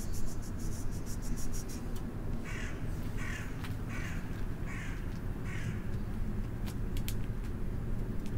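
A crow cawing five times in a row, about a second apart, over a steady low background rumble.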